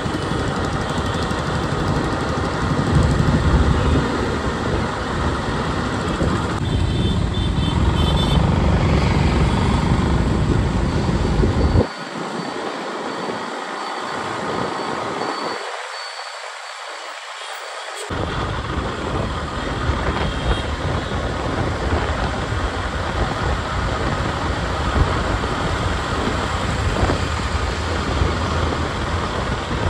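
Wind buffeting the microphone of a moving camera, a steady rushing rumble with road traffic under it; the low rumble cuts out suddenly about twelve seconds in and comes back some six seconds later.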